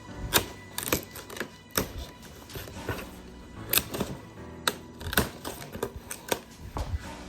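Cardboard shipping box being opened and its contents handled: irregular sharp clicks and knocks, over background music.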